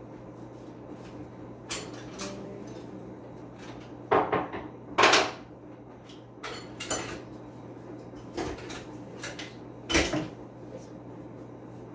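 Hand tools clattering and knocking on a wooden dresser top, as a screwdriver is searched for and picked up. There are about half a dozen sharp clacks with pauses between them, the loudest about five seconds in and again near the end.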